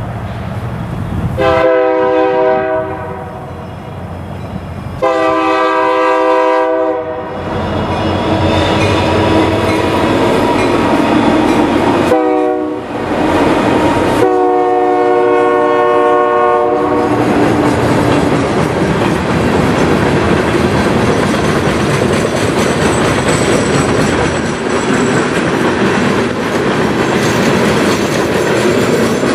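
Union Pacific diesel locomotive horn sounding four blasts, long, long, short, long, the grade-crossing signal. After that, loaded freight hopper cars roll past with steady wheel-on-rail noise.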